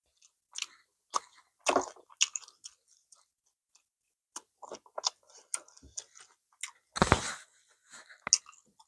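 Close-miked chewing of tender goat meat: wet mouth clicks and smacks at an irregular pace, with a louder burst about seven seconds in and a sharp smack just after.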